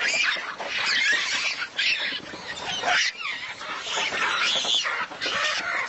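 Several animals calling at once: a dense chorus of high, quickly rising and falling squeals and chattering with no pause.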